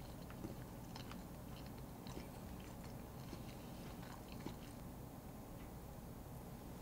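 A person chewing a bite of Tigre, a moist chocolate-chip financier with ganache: faint scattered mouth clicks over a steady low hum.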